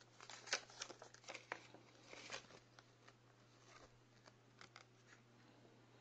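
Folded paper leaflet crinkling as it is unfolded by hand: a quick run of crackles in the first two and a half seconds, then a few scattered ticks.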